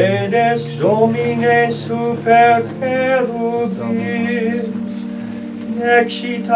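Latin liturgical chant sung by a voice, moving from note to note about every half second, over steady low notes held beneath.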